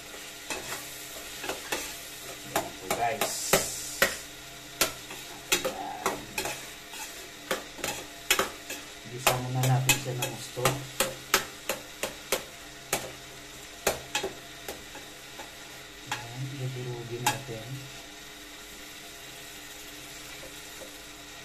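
Stainless steel ladle knocking and scraping against a metal pot while it stirs and breaks up minced beef being sautéed, with a faint sizzle underneath. The knocks come quickly and irregularly, then stop about three-quarters of the way through, leaving only the sizzle.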